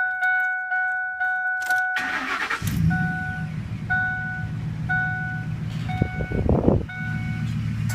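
2006 Ford F-150's 5.4 V8, with a Borla Turbo XL muffler, cranked and started: a warning chime pings about twice a second, then the starter cranks briefly about two seconds in. The engine catches and settles into a steady, deep idle while the chime keeps pinging about once a second, with a short louder burst near the end.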